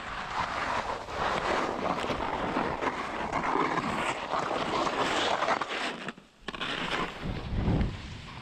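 Skis sliding and scraping down a steep slope of deep snow, with wind noise on the microphone. The sound cuts out briefly about six seconds in, then resumes.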